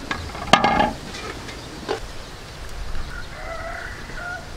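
A sudden sharp sound with a brief ringing tone about half a second in, and a smaller knock near two seconds. Near the end a chicken calls faintly with one drawn-out, wavering call.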